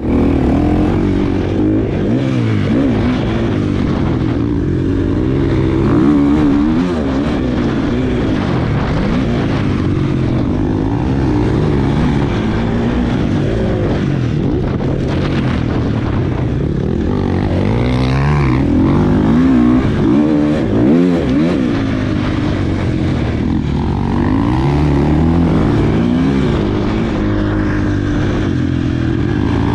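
KTM 250 SX-F single-cylinder four-stroke motocross engine under hard riding, its pitch rising and falling over and over as the throttle is opened and shut.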